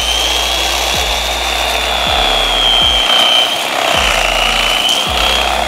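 Corded electric fillet knife running with a steady high whine as its blades saw into a redfish behind the head. The pitch sags slightly about three and a half seconds in, then recovers.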